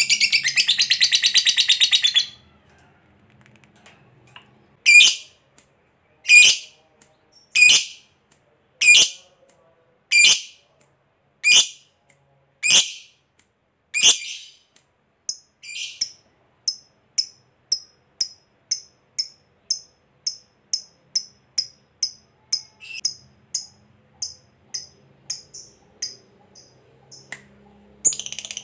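Lovebird calling. It opens with a fast, buzzing rattle-trill, the long 'ngekek' chatter. Then come eight loud, sharp shrieks about a second and a half apart, then a run of quicker, softer, higher chirps about two a second, and the fast rattle-trill starts again near the end.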